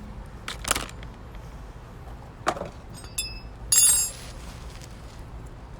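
A few knocks and short metallic clinks, the loudest a ringing metal clatter about four seconds in, from tools, lug nuts and the wheel being handled as the wheel goes back on after a rear brake pad change.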